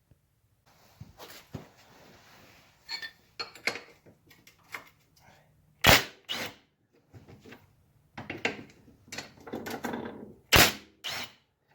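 Socket and wrench working the chain-adjustment bolts on a Polaris ATV: scattered metal clinks and clicks, with two sharp cracks, about six seconds in and again near the end, as the tight bolts break loose.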